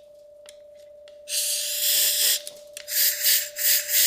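Compressed-air blow gun hissing: about a second in, one blast lasting about a second, then a quick run of four short blasts near the end, blowing stones and dirt out of the motorcycle fairing connector trough. A faint steady whine runs underneath.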